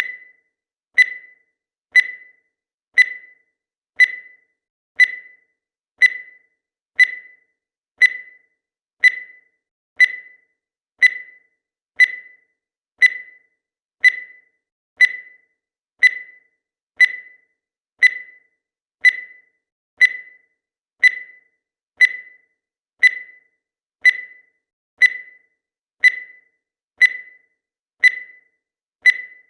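Countdown timer's electronic beep, one short beep each second, each dying away quickly.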